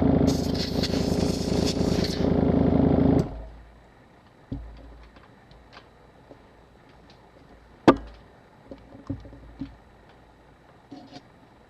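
A motor-driven air blower running with a rush of air, blowing dust and debris out of the camera body; the air rush breaks off briefly just after the start. It stops about three seconds in, and then come small clicks of tools and parts being handled and a sharper knock about eight seconds in.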